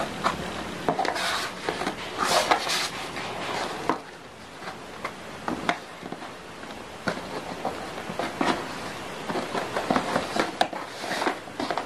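Hands working on a cardboard box: irregular rustling, scraping and light taps against the cardboard, loudest a couple of seconds in and again near the end.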